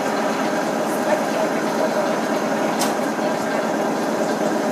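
Electric multiple-unit suburban train standing at the platform, its onboard equipment humming steadily with several held tones.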